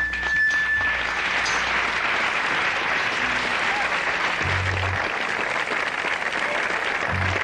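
Audience applauding at the end of a live band number, a last held high note fading out about a second in. Short low bass notes sound midway and again near the end.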